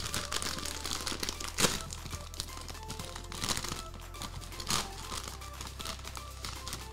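Plastic chip bag of Grain Waves crinkling as it is opened and handled, with sharper crackles about one and a half, three and a half and nearly five seconds in, over background music.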